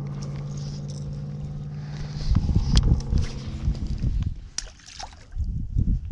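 A boat motor humming at a steady pitch, stopping about four seconds in, over irregular low bumps and water sloshing, with a few sharp clicks.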